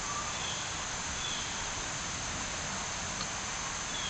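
Steady background hiss with a few faint, short high chirps scattered through it.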